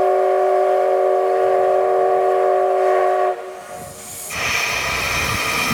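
The steam whistle of steam locomotive C62 2 sounds a long chord of several notes and cuts off about three seconds in. About a second later a loud hiss of escaping steam starts and keeps going.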